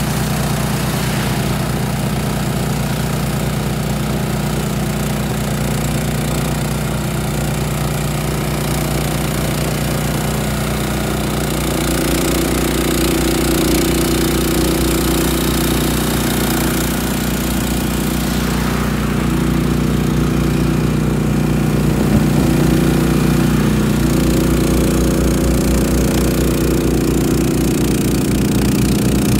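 Honda HS1336 hybrid tracked snowblower's single-cylinder engine running steadily under load as the auger cuts through deep snow and the chute throws it. The engine note shifts and gets a little louder about twelve seconds in.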